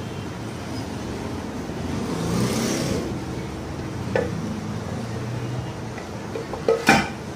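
Aluminium crankcase half of an old Royal Enfield Bullet engine knocking and clunking against the other half as it is fitted over the crankshaft: a single knock about four seconds in, then a quick cluster of louder metal knocks near the end. Under it a steady rumble, like passing traffic, swells and fades about two to three seconds in.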